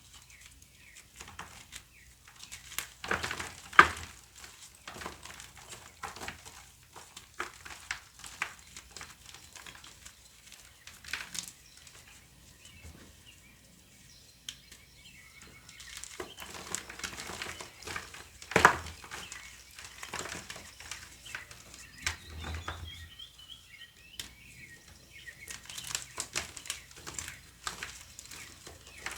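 Gym chalk block being crushed and crumbled, a run of irregular crunches with the loudest two about four seconds in and again about nineteen seconds in. A bird calls briefly with a short descending series of notes a little after twenty seconds in.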